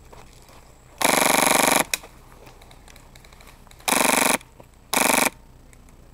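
Airsoft M4 rifle firing on full auto in three bursts: a longer one of just under a second about a second in, then two shorter ones about four and five seconds in. A short click follows just after the first burst.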